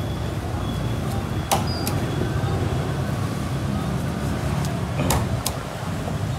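A cleaver chopping roast pork on a wooden chopping block: a few sharp chops, one about a second and a half in and two close together near the end, over a steady low rumble.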